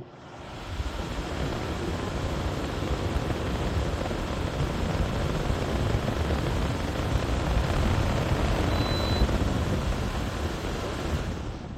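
Portable air conditioner running on a high fan setting: a steady rush of blowing air that fades in over about a second and fades out at the end.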